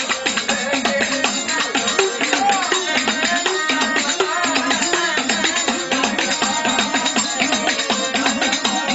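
Gujarati folk devotional music: a bending melody over a steady beat of drums and jingling, rattling percussion.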